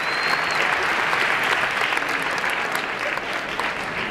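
Concert audience applauding, a dense patter of clapping that thins a little near the end.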